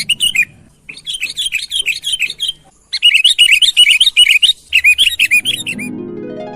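Sooty-headed bulbul singing in four quick bursts of rapid, repeated chirping notes, a lively song used as a lure call for wild bulbuls. Near the end a rising run of musical tones starts.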